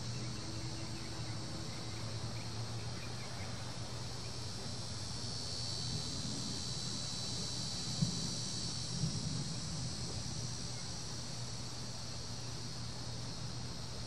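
Cicadas buzzing in a high, steady chorus that grows louder about five seconds in and eases off again around ten seconds, over a steady low hum, with a single brief tap about eight seconds in.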